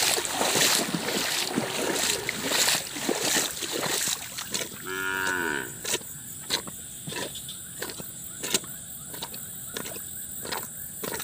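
Footsteps swishing through wet grass and puddles, then a cow moos once, about a second long, roughly five seconds in; after that, footsteps continue at a steady pace.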